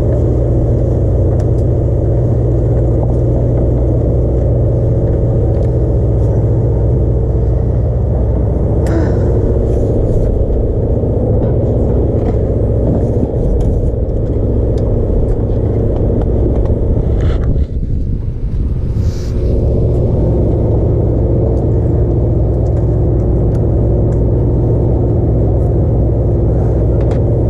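A sportfishing boat's engine droning steadily, a constant low rumble with a dull hum. There is a brief dip in the sound about two-thirds of the way through.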